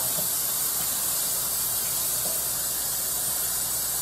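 Pan of browned chicken and vegetables sizzling and hissing steadily on a stove burner, with freshly added water hitting the hot pan and starting to bubble.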